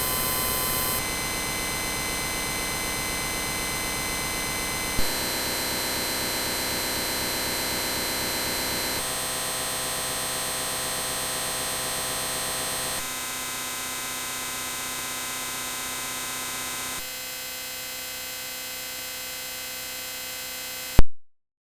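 The 'bruh' sound effect looped at extreme digital speed-ups, so it blurs into a steady buzzing drone of many high tones. The drone changes abruptly about every four seconds as the speed-up steps higher, and ends about 21 seconds in with one loud click, then silence.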